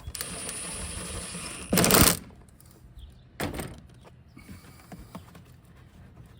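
A hand tool working a 5/16 headlight mounting screw on a 2007 Chevrolet Silverado: a steady mechanical ratcheting whirr for about a second and a half. It ends in a loud, brief clatter around two seconds in, followed by a lighter knock a little later.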